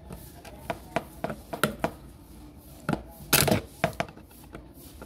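Irregular clicks and knocks of a screwdriver working a screw and handling hard plastic parts while the swing-arm linkage is fastened to an electric stand fan's gearbox. A quick run of clatter comes a little past the middle.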